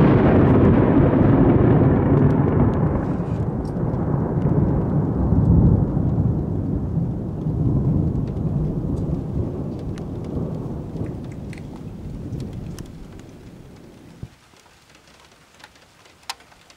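Thunder from a positive cloud-to-ground lightning strike about 2 km away: a loud, deep rumble that swells again about five seconds in and dies away over some fourteen seconds, with rain falling.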